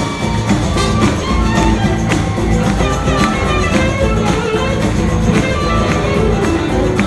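Live band with drums and electric guitars playing an uptempo funk-rock song, with no lead vocal.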